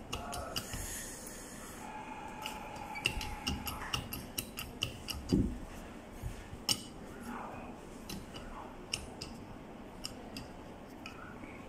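Hand-lever hydraulic pressure test pump being worked, cycling the pressure on a dial gauge: a run of sharp metallic clicks and clacks from the lever and fittings, with a dull knock about five seconds in.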